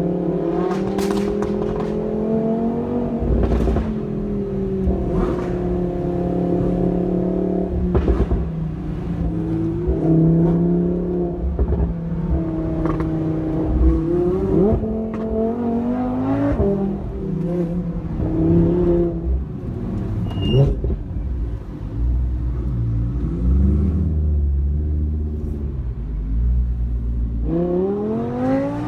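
Naturally aspirated V10 supercar engine driving hard, its pitch climbing and falling back again and again as it runs up through the gears. A few sharp cracks cut through, and a fresh rising rev comes near the end.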